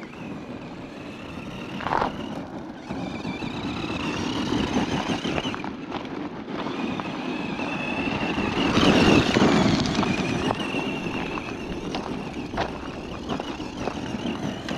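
Tamiya Blackfoot RC truck's brushed Speedworks 350 electric motor whining in spurts as it drives over gravel, its tyres crunching on the stones. It is loudest about nine seconds in, as it passes close by.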